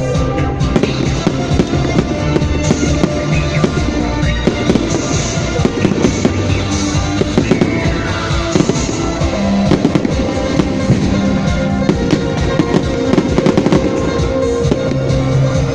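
New Year fireworks going off continuously, a dense run of rapid crackles and bangs, with music playing at the same time.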